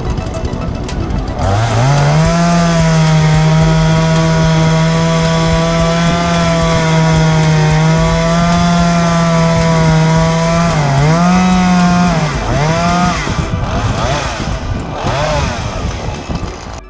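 Two-stroke chainsaw revving up from idle about a second and a half in and held at full throttle through a long cut into rotten wooden floor joists. It then dips and revs twice more before dropping back to a lower running speed near the end.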